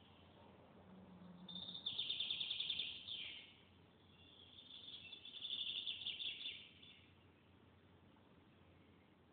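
A bird trilling twice: two high, rapidly pulsed trills of about two seconds each, the second with a few pitches at once.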